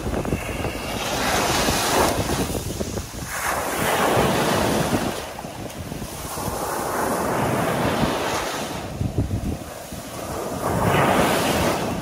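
Small ocean waves breaking at the shoreline and washing up over sand: four surges of foamy hiss, each swelling and fading, about three seconds apart. Wind rumbles on the microphone underneath.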